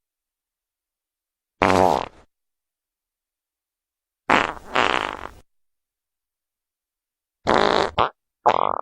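Wet fart sound effects played one after another: four short farts, each about a second or less, the second in two pushes, with dead silence between them. The last starts just before the end.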